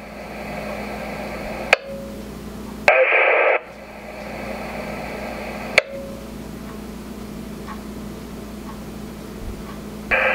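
RadioShack scanner receiving a weak, very scratchy two-way radio transmission: steady static hiss, broken by two sharp squelch clicks and a short burst of garbled audio about three seconds in. It is a fire station keying up to acknowledge a pager test, its signal too weak to come through clearly.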